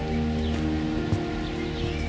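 Background music with held notes that change every half second or so.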